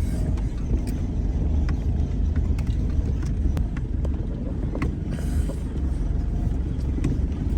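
Steady low engine and road rumble of a moving vehicle heard from on board, with scattered light rattles and knocks.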